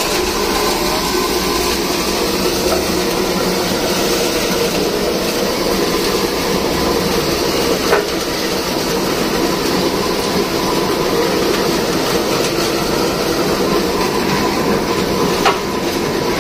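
Mango pulping machine running steadily, churning whole Kesar mangoes with crushed ice into pulp. A sharp knock about halfway through and another near the end.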